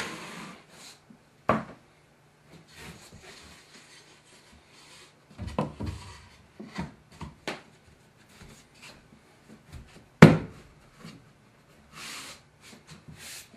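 Steel trowel scraping thinset mortar across fiber cement backer board. Then a strip of fiber cement board is handled and set into the mortar, with several knocks around six seconds in and a single sharp knock, the loudest sound, about ten seconds in. Hands rub and press the board near the end.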